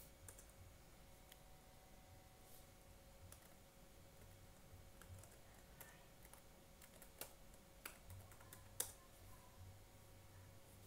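Faint, scattered computer keyboard key presses, a few separate taps spread over several seconds, over a low steady hum.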